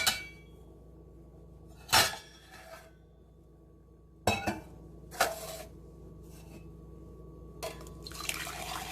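Hot milk tea being pulled, poured from one cup to another to cool and froth it. The metal or glass cups clink sharply about five times, and near the end a steady pour of liquid splashes into a cup.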